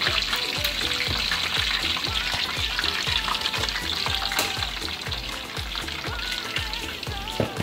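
Fish frying in a saucepan of hot oil: a steady, dense sizzle that eases slightly partway through. Under it runs a steady low beat of background music.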